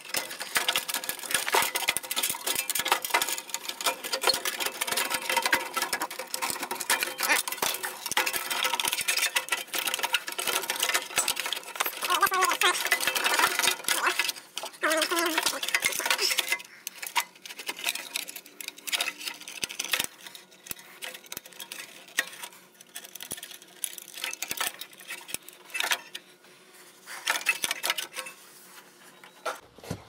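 Wires and push-on connectors being handled and fitted onto a furnace control board: dense rustling and small clicks for about the first half, then sparser clicks.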